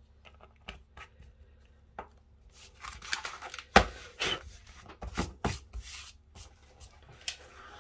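Sheets of white paper handled on a craft mat: lifted, rustled and set back down, with several sharp knocks, the loudest a little before halfway. A few faint clicks come first, as a small plastic pot of embossing powder is lidded.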